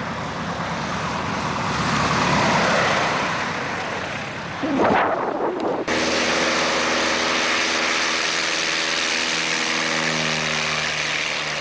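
Single-engine Piper Cherokee light aircraft landing: a rushing noise swells as it comes in low and touches down. After a sudden cut about six seconds in, the steady drone of its piston engine and propeller is heard as it rolls along the grass strip.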